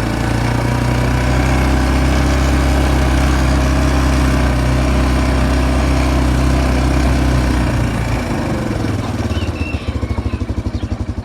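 A small engine running steadily, then slowing about eight seconds in into an even pulsing beat that dies down toward the end.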